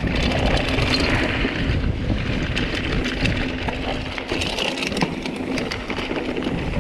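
Mountain bike riding fast down a dirt singletrack: tyres running over packed dirt and dry leaves, with wind rushing across the microphone and frequent sharp clicks and rattles from the bike.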